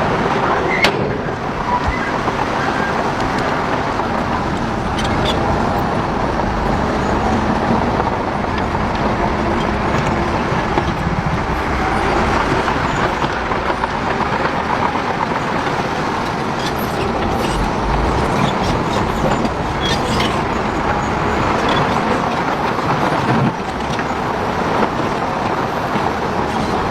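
Heavy machinery engines running steadily, with a sharp knock about a second in.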